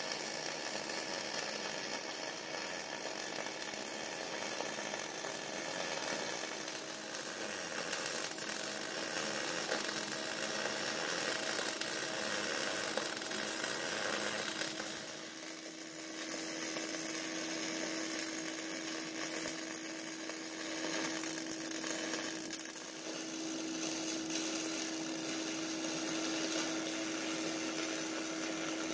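Electric arc welding of steel onto a Dana 44 axle housing: a steady, noisy hiss with a constant low tone beneath it. The arc drops off briefly about fifteen seconds in, then resumes.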